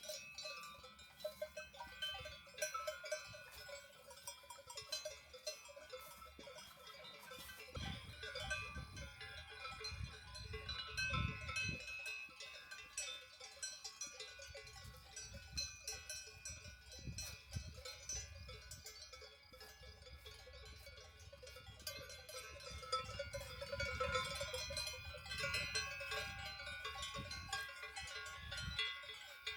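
Alpine cowbells on grazing cows clanking irregularly, several bells of different pitches ringing at once.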